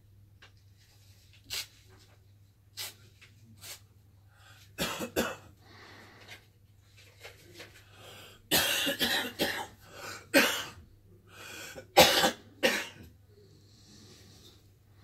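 A person coughing again and again in short bouts, the heaviest fit of coughs about two-thirds of the way in, over a faint low steady hum.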